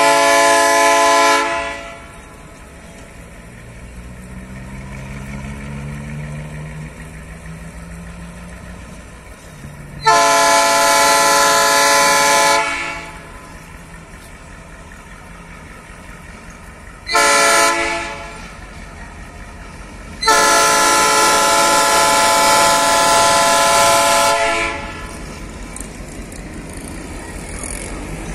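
G22UB diesel locomotive's air horn sounding the level-crossing warning: two long blasts, a short one, then a longest final blast, the signal of a train approaching a road crossing. A lower rumble fills the gaps between blasts.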